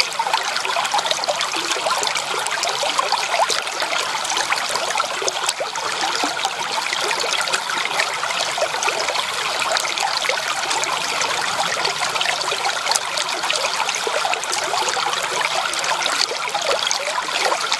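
Shallow creek water running over stones along an icy edge: a steady babbling of many small splashes and trickles.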